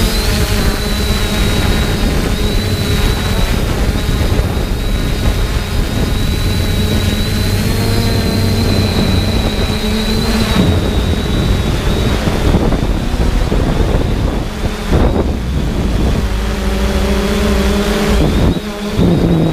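3DR Solo quadcopter's electric motors and propellers whirring, heard from the camera on board, with a steady high whine and a pitch that shifts up and down every few seconds as the motors change speed. The loudness dips briefly twice near the end.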